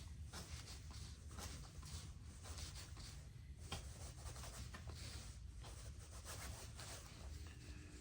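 Folding knife's Nitro V blade sawing through 550 paracord in many faint, irregular rasping strokes. The edge is not as sharp as it should be, so the cord takes repeated strokes.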